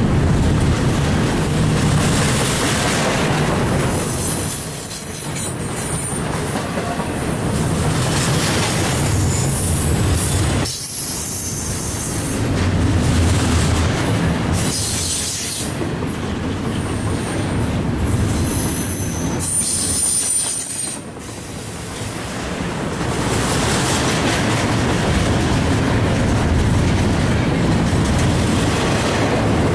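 Freight train cars rolling past close by, steel wheels clattering over the rails in a steady rumble, with short high-pitched wheel squeals a few times.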